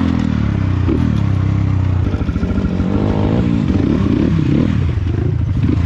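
Dirt bike engine running under way, revving up and falling back several times as the throttle is worked.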